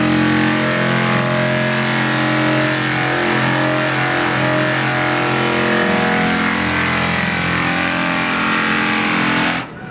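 National Detroit double-pad straight-line air sander running, flat-sanding a solid wood tabletop: a loud steady hum over a hiss. It cuts off suddenly near the end.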